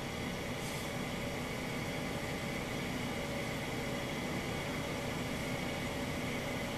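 Steady background hiss with a faint constant hum: room tone, with no distinct handling sounds.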